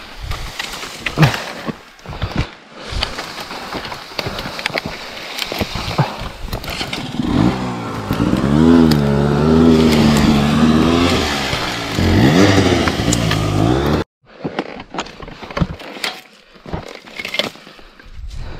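Dry branches and leaf litter crackling and snapping as someone scrambles through brush. About seven seconds in, a dirt bike engine revs up and down for several seconds and cuts off abruptly, then the snapping of twigs resumes.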